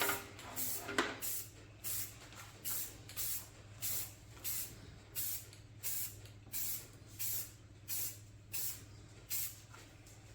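Aerosol spray-paint can sprayed in short, evenly spaced bursts of hiss, about three every two seconds, dusting on a patina finish. A faint low steady hum runs underneath.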